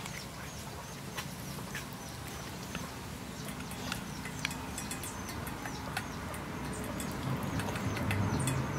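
Birds calling in many short, repeated chirps over a low steady hum.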